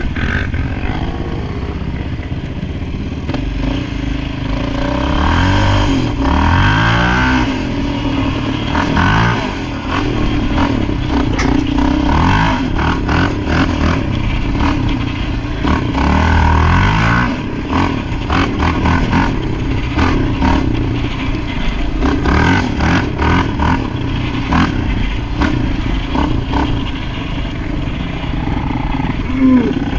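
Yamaha Raptor sport ATV engine running under way, its pitch climbing through a gear a few times, with rattles and knocks from the machine over rough ground.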